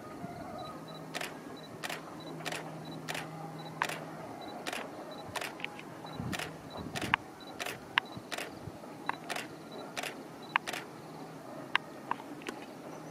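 Irregular sharp clicks, about one or two a second, over faint outdoor ambience, with a faint high-pitched pip repeating steadily behind them.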